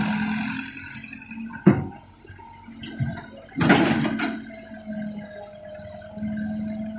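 CAT 307C hydraulic excavator's diesel engine running steadily while it works. There is a sharp knock about two seconds in, and about four seconds in a rush lasting under a second as a bucket of soil pours into the dump truck bed. A faint steady whine follows.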